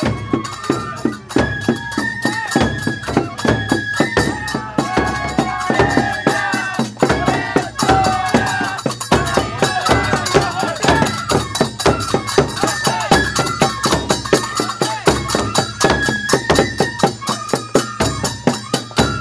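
Japanese festival hayashi: large barrel-shaped taiko drums struck in a fast, steady beat under a high melody of held notes played on fue flutes.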